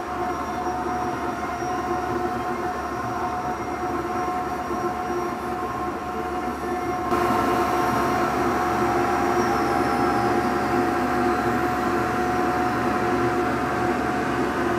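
Axiom AR8 Pro CNC router's spindle running steadily while its bit cuts letter outlines into black-faced particleboard, with the dust collector running. It gets louder about seven seconds in.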